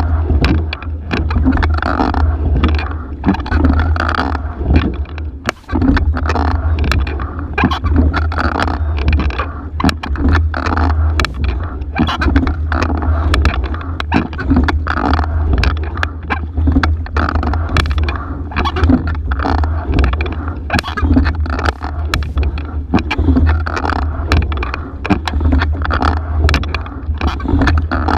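Single scull rowed hard at race pace, a stroke about every two seconds: oars clunking in the oarlocks, seat and rigging knocking, and water rushing along the hull, over a steady low rumble on the boat-mounted microphone.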